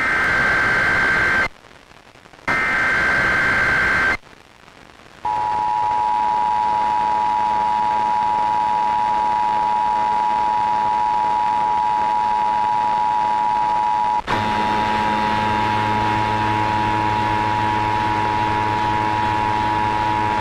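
Emergency Alert System test on FM radio: two screeching bursts of the digital SAME header, about a second apart, then the steady two-tone EAS attention signal (853 and 960 Hz sounded together). About nine seconds into the tone it breaks for an instant, and a low hum runs under it after that.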